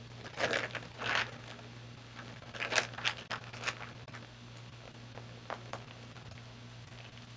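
Plastic mailer bag crinkling and rustling in short scattered bursts as it is handled and opened, over a steady low hum.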